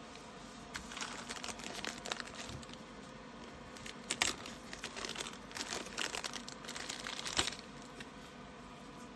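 Packaging being handled for a keyboard unboxing: irregular crinkling and rustling, with a couple of sharper snaps in the middle and near the end.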